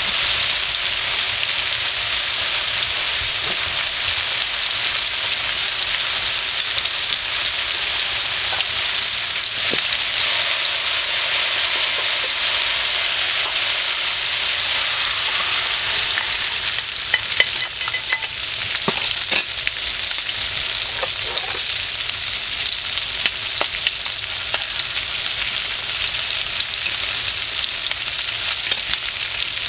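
Chicken thighs frying in hot oil in a cast-iron skillet, with green beans cooking in a stainless steel pan: a steady sizzle. Partway through there are a few light clicks and knocks.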